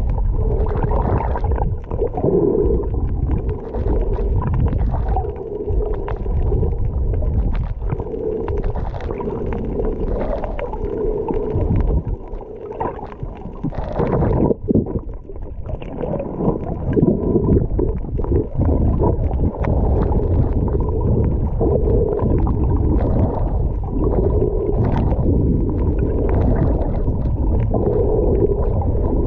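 Muffled underwater noise picked up by a camera held under water while snorkeling: a low, steady rush with a swelling sound every couple of seconds.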